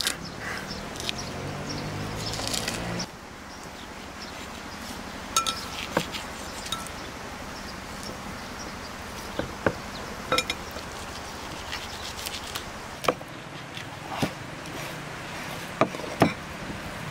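Large kitchen knife cutting up a raw chicken on a wooden cutting board: scattered sharp knocks as the blade strikes the board, about eight in all, spread through the second half. A low hum runs for the first three seconds and then stops suddenly.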